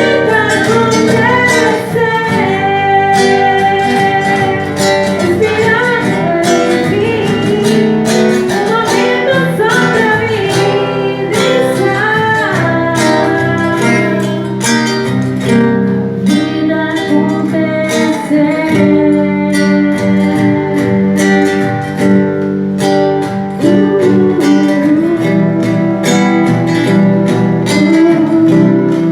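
A band playing live: strummed acoustic guitar with a singing voice over a steady rhythm.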